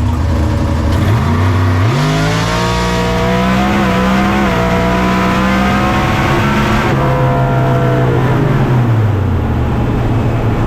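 V8 drag car at full throttle on a pass. Engine pitch climbs in steps through the gears in the first few seconds, holds, then drops away as the engine comes off the throttle near the end. The engine is misfiring on the right bank, which the driver takes for a bad spark plug, and it did not sound good.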